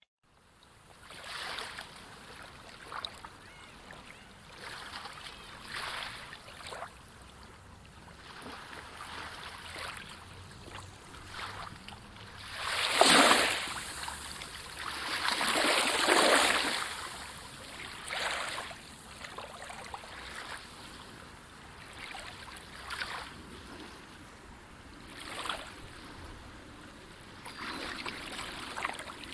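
Water washing and splashing in uneven surges, the two loudest about 13 and 16 seconds in.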